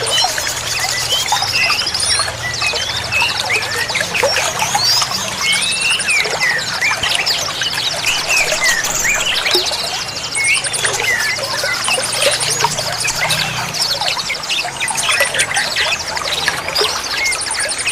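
A dense chorus of many small songbirds chirping, whistling and trilling over each other, above a steady sound of running, trickling water.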